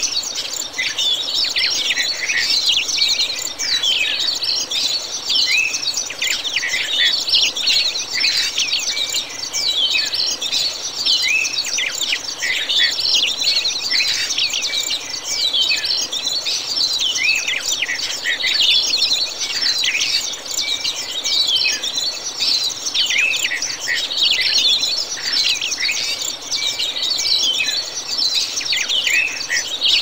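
Dense chorus of a large flock of birds chirping and calling all at once, many short high chirps overlapping without a break.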